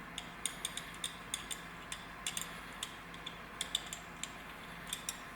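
Light, irregular metallic clicks and ticks, about three or four a second, as small steel parts of an emergency brake handle assembly are handled and threaded together by hand.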